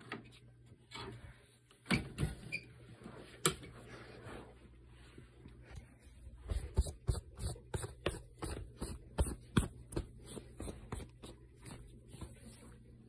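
Footsteps and handling knocks as a phone is carried across a room: a few separate knocks in the first few seconds, then a run of steps about two a second, over a faint steady low hum.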